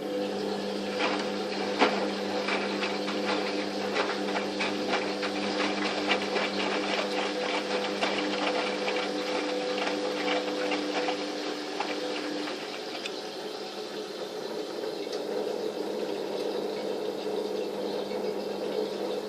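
Fagor washing machine running a wash of towels: its motor hums steadily while the drum turns, with quick clicks and rattles that thin out in the second half.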